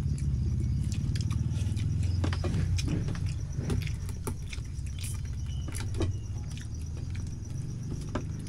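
A steady low motor hum with scattered light clicks and taps from people eating with their hands at a table, and a faint high insect trill.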